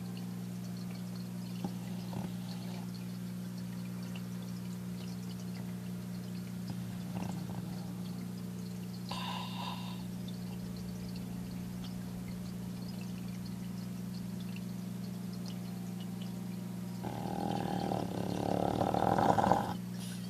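A sleeping French bulldog snoring, with a few soft snores and then a longer, louder snore that builds near the end and stops abruptly.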